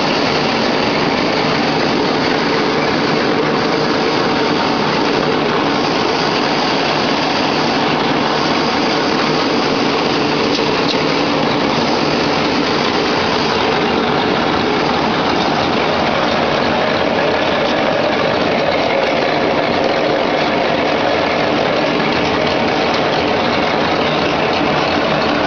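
Napkin folding machine running steadily, a loud, even mechanical noise with no pauses or changes.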